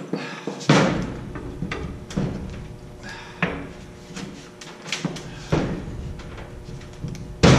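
Irregular thumps and knocks as a drywall sheet is pushed and knocked into place against the framing beside a door opening, the loudest thump near the end.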